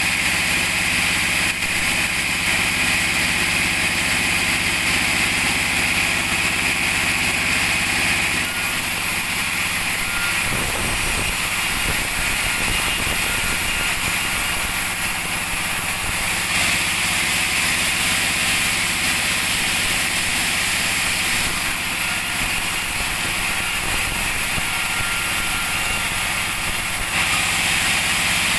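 Two-stroke chainsaw engine running steadily, its tone shifting slightly now and then.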